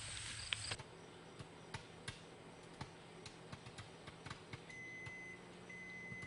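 An ear of popcorn popping in a paper bag inside a running microwave oven: scattered, irregular pops over the oven's steady hum. From a little past the middle the microwave beeps in long, evenly spaced tones, the signal that the cooking cycle is done.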